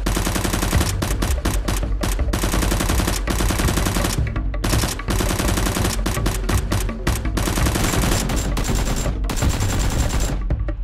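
Rapid automatic gunfire sound effects, long streams of shots with a few brief breaks, the longest about four and a half seconds in, laid over background music.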